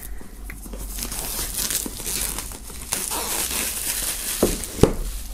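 Clear plastic shrink-wrap film crinkling as it is peeled off a cardboard box and crumpled in the hand, with a couple of sharper snaps near the end.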